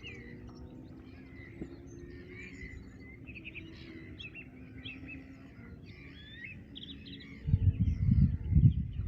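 Many small birds chirping and singing together, with faint steady low tones underneath. About seven and a half seconds in, a loud low rumble starts and runs to the end.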